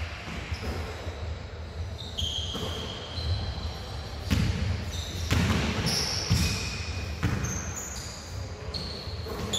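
Basketballs bouncing on the court in a large, echoing sports hall, with several separate thuds. Short high squeaks of sneakers on the floor come between the bounces.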